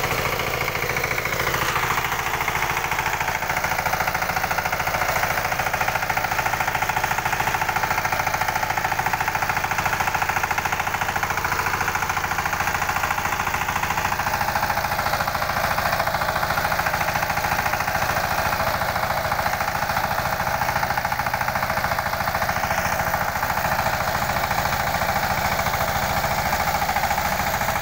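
Rhino tractor engine running steadily under working load with a rapid, even clatter, as the tractor puddles a wet paddy field for rice transplanting.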